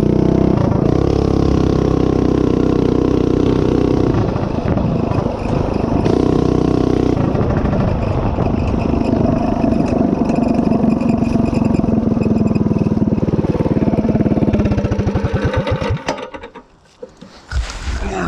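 A Predator 212cc single-cylinder four-stroke engine on a DoodleBug DB30 mini bike, Stage 1 with the governor removed, running hard under load as the bike is ridden. The engine note rises and falls in the first several seconds, then holds steady. About sixteen seconds in it drops away to quiet, followed by a brief scuffing noise near the end.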